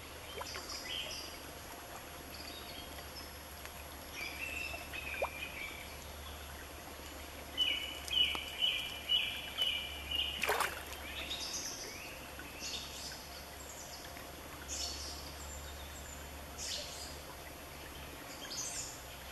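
A shallow gravel creek running with a steady rush, while small birds chirp over it. There is a run of about six quick chirps about eight seconds in, with more scattered calls later. A single sharp click cuts through near the middle.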